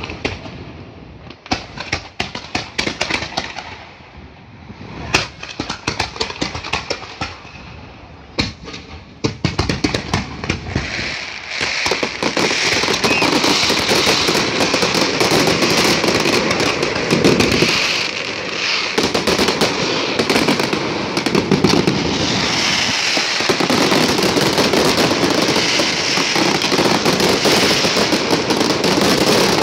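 Fireworks going off: separate sharp bangs at first, then from about twelve seconds in a dense, continuous barrage of bangs and crackling, as in a show's finale.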